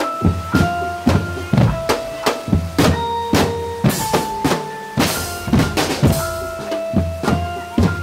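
Indonesian drumband music: a steady beat of bass-drum and snare hits, several a second, under held melody notes.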